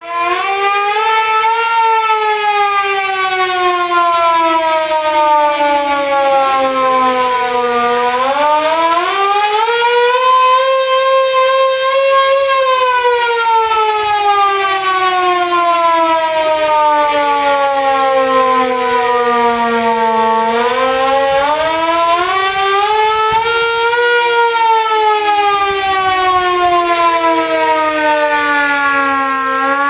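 Air-raid warning siren sounding a continuous wail that slowly rises and falls in pitch, each swell taking around ten seconds, with a second siren tone overlapping at times.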